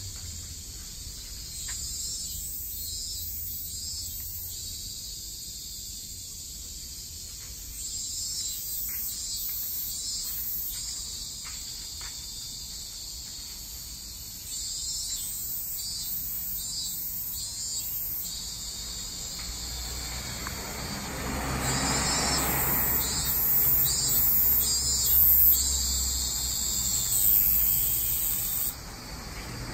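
Insects calling in repeated high-pitched pulsing phrases that come in several clusters. In the last third a car passes on the road, rising to a peak and falling away near the end.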